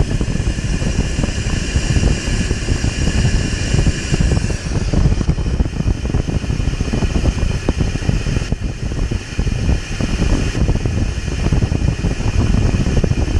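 Chevy S-10 Blazer's 4.3-litre V6 running steadily with a rough, busy low rumble and a steady high whine that eases off about four seconds in.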